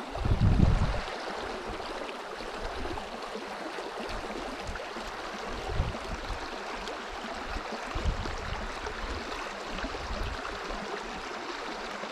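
River water running steadily, with a brief low rumble in the first second.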